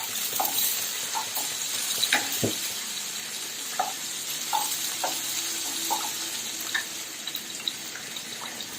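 Chopped onion, green chilli, garlic and ginger sizzling in hot oil in a pan: a steady hiss, with scattered light taps of a spoon stirring them.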